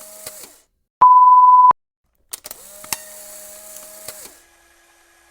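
A single loud electronic beep, one pure steady high tone lasting under a second that starts and stops abruptly, about a second in. Faint hiss with a low steady hum and a few clicks follow.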